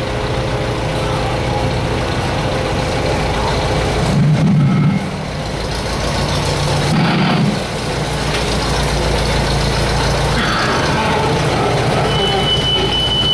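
Tractor engine running steadily, its low note swelling louder twice in the middle. A single high steady tone sounds for about a second near the end.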